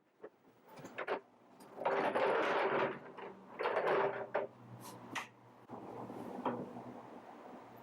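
Workbench handling noises: a few sharp clicks and knocks, and two longer scraping sounds of about a second each, with a faint steady low hum underneath from a couple of seconds in.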